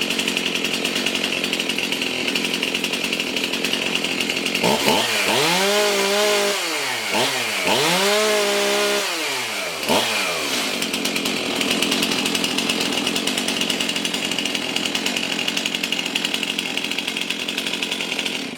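Stihl MS 271 chainsaw's 50 cc two-stroke engine idling, revved up twice about five seconds in with a short blip after, then settling back to idle and cutting off at the end. It is running just after its low-speed mixture screw was tweaked to smooth out a rough idle.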